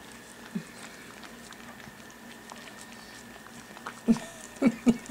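A mother dog licking a week-old puppy to clean it, with faint wet lapping, then a few short squeaks from the newborn puppy about four seconds in.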